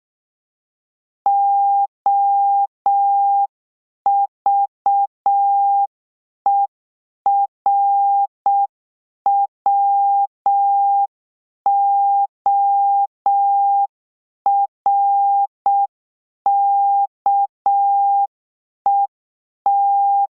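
Morse code practice tone: one steady beep keyed in dots and dashes, spelling out the word "OVERWORKED" at a slow practice pace with clear gaps between letters. The final D is still being keyed at the end.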